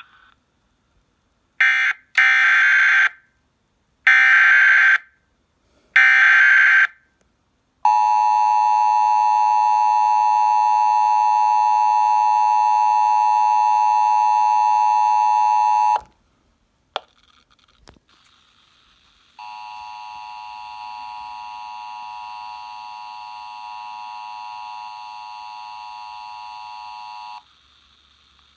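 Emergency Alert System header: three buzzy data bursts about a second long, two seconds apart. Then the EAS attention signal, a harsh two-tone alarm held steady for about eight seconds and stopping abruptly. After a couple of clicks, a second, quieter attention tone sounds for about eight seconds, starting a relayed alert.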